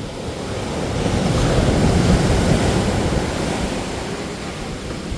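Ocean surf: a wave breaks and washes in. It swells to its loudest about two seconds in, then eases off.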